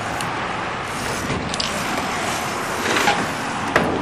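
Skate park ambience: a steady rush of noise, with a few sharp clacks near the end.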